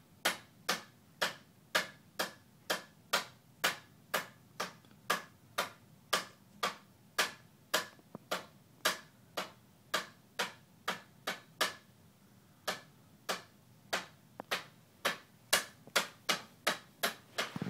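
Plastic Handy Manny toy hammer tapping on the wooden frame of a toddler bed, a steady series of sharp taps about two a second, with a brief pause about two-thirds of the way through.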